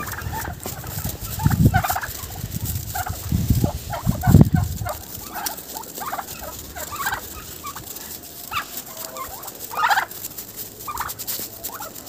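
A flock of domestic turkeys calling as they walk, many short calls overlapping one after another. A few low thumps, the loudest sounds, come in the first half.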